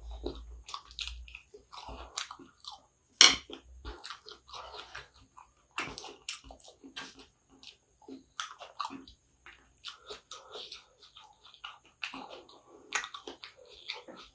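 Close-up chewing of kottu roti: irregular wet mouth smacks and soft crunches as chopped roti and vegetables are chewed, with a sharp click about three seconds in.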